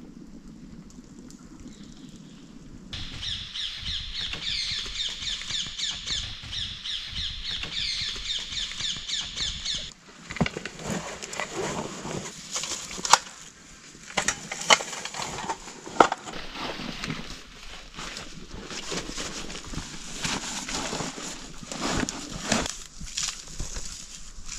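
A high-pitched call repeating rapidly from about three to ten seconds in, then rustling, scraping and sharp clicks of a person handling gear and digging in soil among dry leaves.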